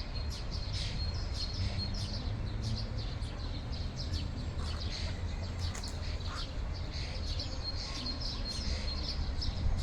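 Ducklings peeping: many short, high chirps in quick succession over a steady low rumble.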